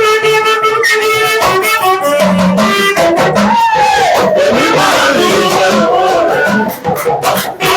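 Loud music with instruments playing steady sustained notes and a melody over a regular beat.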